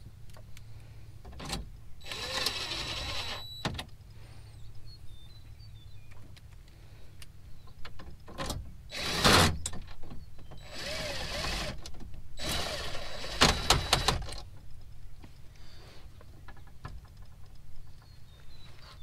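DeWalt cordless impact driver running dash mounting bolts in, in four short bursts of motor whine. Small clicks of handling fall between the bursts.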